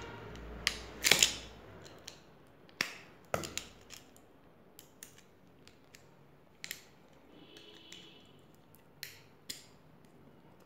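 Steel pliers clicking and scraping as they grip and pry at a 9-volt battery's metal top and snap terminals. The loudest cluster of clicks comes about a second in, with scattered sharper clicks after it.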